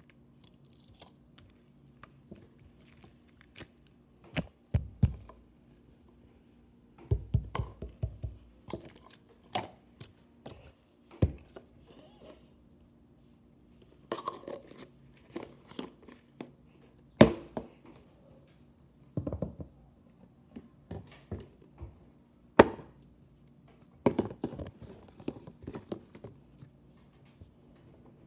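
Slime being played with by hand: irregular bursts of squishing, popping and clicking as it is stretched, dropped onto a stone countertop and pressed into a jar, with a few sharper knocks.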